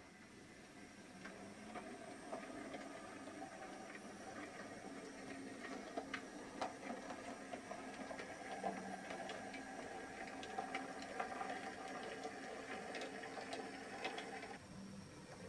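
H0e model train running: the small electric motor of a Posch C50 model locomotive hums steadily while the wheels of the metal-built wagons click over rail joints and points, the clicks thickest in the middle. The hum drops away near the end as the train moves off.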